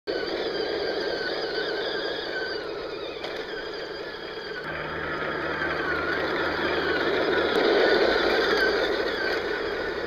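Remote-control toy tank's small electric drive motors and gearboxes whining, the pitch wavering as it changes speed, with its plastic tracks rattling over dirt and twigs. It grows louder about eight seconds in.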